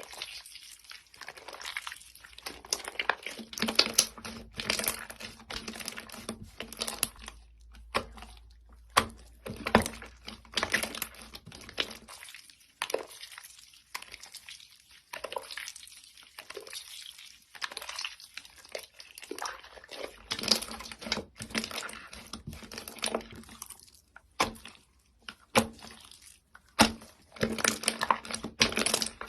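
Slime being squeezed and worked by hand, giving a run of irregular sticky crackles and pops.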